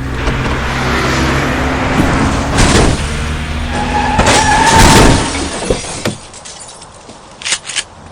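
Car sound effect: a vehicle rushing in, growing louder to a peak about five seconds in, then cutting off, with two short sharp noises near the end.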